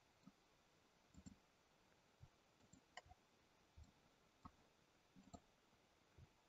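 Near silence broken by faint computer mouse clicks, several of them at irregular spacing of roughly a second.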